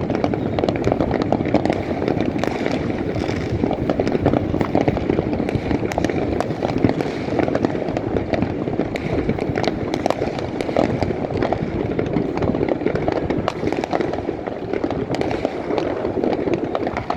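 Many New Year's fireworks bursting at once: a dense, unbroken barrage of overlapping bangs and crackles.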